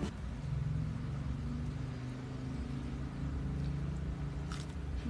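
Electric fan running with a steady low hum and rumble. A single short click near the end, from biting into a mango slice.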